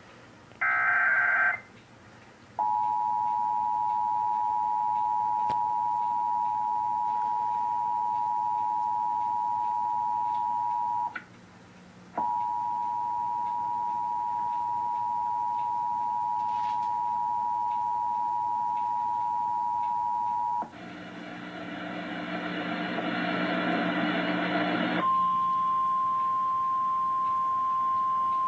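Emergency Alert System broadcast tones. First a brief shrill burst from the digital SAME header. Then the two-tone attention signal (two steady tones a little under 1 kHz sounding together) runs for about eight seconds, breaks off for a second and resumes for eight more. After about four seconds of harsh buzzing comes a single steady tone, the 1050 Hz weather-radio warning alarm.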